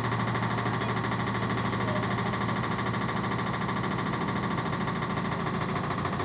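LG 7 kg washing machine running with a loud, steady drone and a fast buzz through it: an abnormal noise and vibration that the owner calls horrible and says comes back after being looked at.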